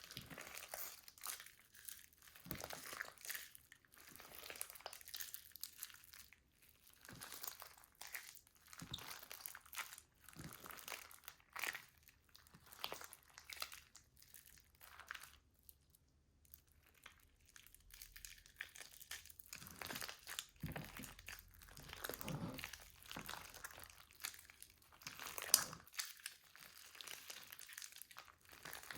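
Slime being squeezed and worked by hand: faint, irregular crinkling and sticky crackling, with one sharper snap near the end.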